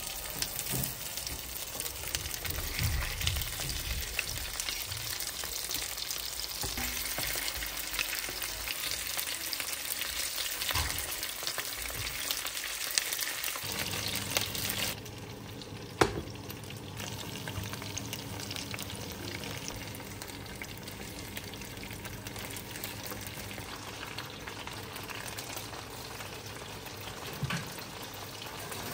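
Honey-glazed chicken wings frying in oil in a roasting pan, a steady crackling sizzle with tongs working the pieces. About halfway the sizzle drops to a quieter hiss, and a single sharp click follows shortly after.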